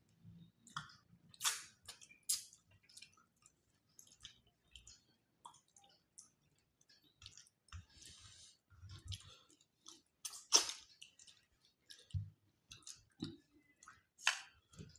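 People eating with their hands from steel plates: quiet chewing, mouth smacks and the squish of fingers working rice and fish, with a few sharp clicks scattered through, the loudest about ten and a half seconds in.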